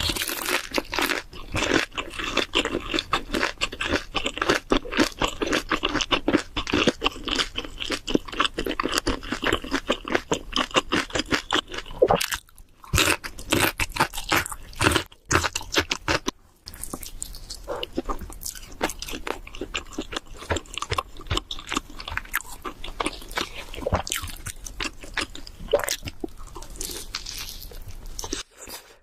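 Someone chewing and crunching on cheese seafood pizza, a rapid run of crisp crunches. The crunching pauses briefly about twelve and sixteen seconds in, then goes on more softly.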